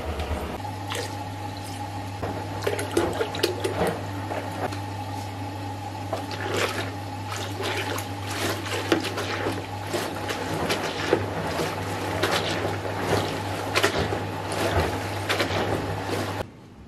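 Spin mop being dunked and swished in a bucket of soapy water, with irregular sloshing and splashing over a steady low hum.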